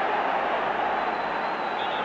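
Football crowd in the stadium stands making a steady, continuous noise.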